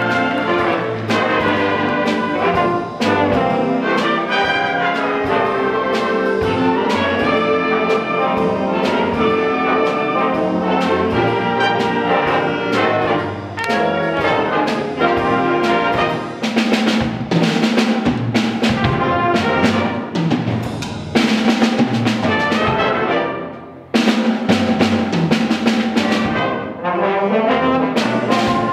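Concert band playing, led by brass (trumpets, trombones, tubas) over woodwinds, with drum hits punctuating the second half. The sound thins briefly, then the full band comes back in with a loud attack about five seconds before the end.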